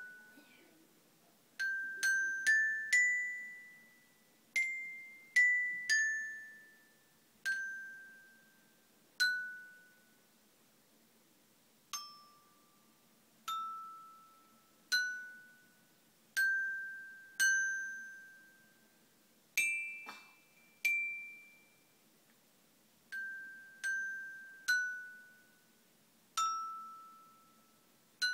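Glockenspiel played one note at a time with a single mallet, slowly picking out a school anthem melody. Each struck metal bar rings out and fades before the next, at an uneven, hesitant pace with a few longer pauses between phrases.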